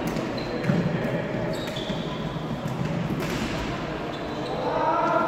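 Floorball in play in a sports hall: sticks clacking against the plastic ball and the floor, short shoe squeaks on the court, all echoing in the large hall. Players' shouts rise near the end.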